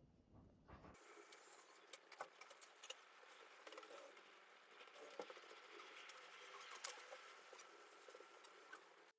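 Near silence with faint, irregular small clicks and taps.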